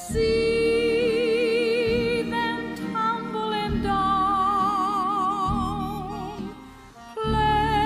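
Music: a slow melody of long held notes with wide vibrato over a lower accompaniment with regular low pulses. It dips briefly about seven seconds in, then comes back.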